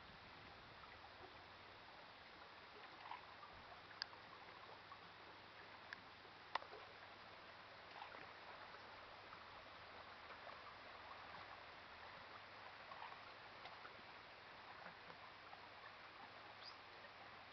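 Near silence: faint water lapping, with a couple of small sharp clicks about four and six and a half seconds in.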